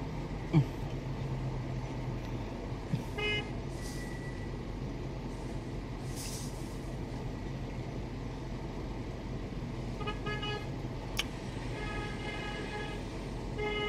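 Car horns honking outside, heard from inside a car: a short toot about three seconds in, then several more honks near the end, one held for about a second. A steady low hum of the car cabin runs underneath.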